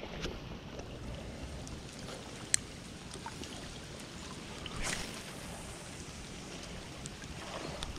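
Steady hiss of rain falling, with a single sharp click about two and a half seconds in.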